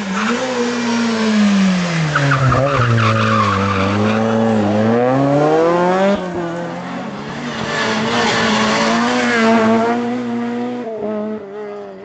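Renault Clio R3 rally cars' four-cylinder engines at stage pace: the engine note falls as a car slows into a bend, then climbs again as it accelerates out, with tyres squealing. About halfway through the note changes sharply to another car's engine holding a fairly steady high note.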